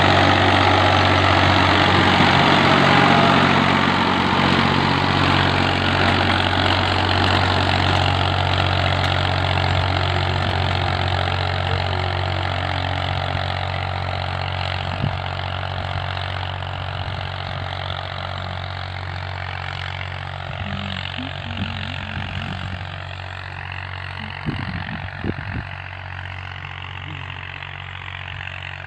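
Ford 4000 tractor's three-cylinder engine running steadily under load while it pulls a tillage implement, gradually fading as the tractor draws away.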